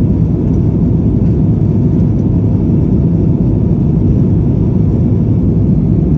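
Steady low roar of cabin noise inside an Airbus A321-211, from its CFM56 turbofan engines and airflow.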